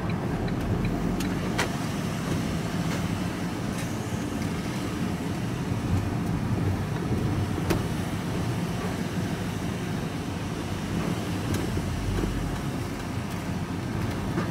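Steady engine and road noise heard from inside a vehicle's cab while it drives slowly, with an occasional sharp click or rattle.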